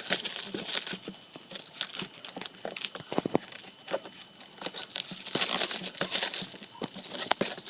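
Packaging being handled while a ceiling fan is unpacked: irregular crinkling and rustling with some tearing and sharp little clicks, busiest a little past the middle.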